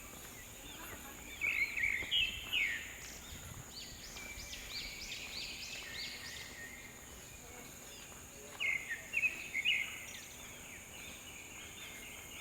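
Wild birds calling in two bouts of quick chirping phrases, one about a second and a half in and another near nine seconds, over a steady high insect drone.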